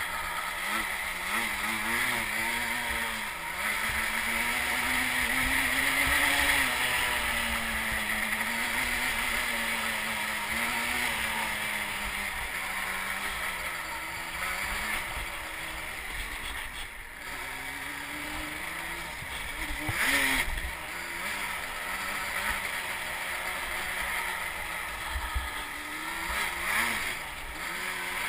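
Sport quad ATV engine running under a rider's throttle, its pitch rising and falling as it speeds up and slows along a rough track, with rushing noise over it. There is a short louder burst about two-thirds of the way through.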